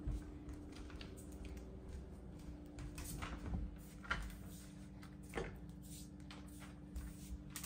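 Scattered light knocks and clicks as a child walks across a hard floor and opens a pantry door, the most marked ones about three to four seconds in, with a few more later; a faint steady hum runs underneath.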